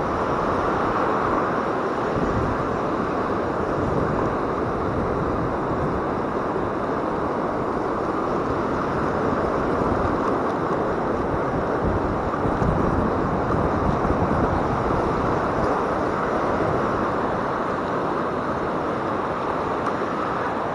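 Steady rushing noise of surf washing up the beach, mixed with wind on the microphone.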